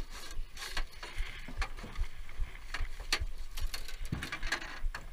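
Irregular clicks and soft knocks from fly line and reel being handled while playing a fish, over a low rumble of wind on the microphone.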